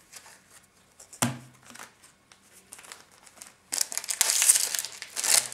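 Foil Cardfight!! Vanguard booster pack wrapper crinkling as it is torn open, loud and crackly over the last second and a half. Before it, a few faint clicks and a single short knock about a second in.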